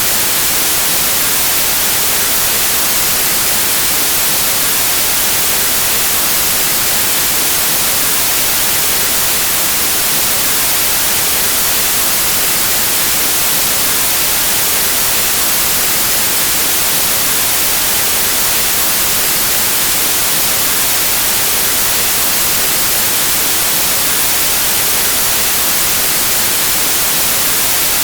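Steady white noise: an even, unchanging hiss like radio static, brightest in the high frequencies.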